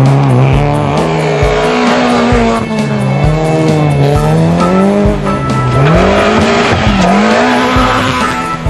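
Small rally car engines revving hard on gravel, the pitch climbing and dropping again and again as the drivers shift and lift through the corners, with tyres sliding on loose dirt.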